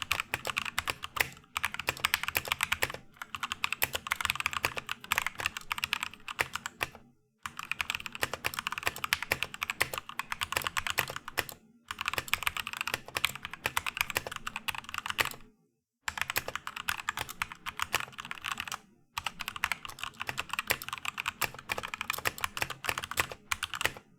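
Typing on a budget 60% mechanical keyboard fitted with lubed Gateron Yellow linear switches: rapid, steady keystrokes in runs of a few seconds. There are four brief pauses between runs.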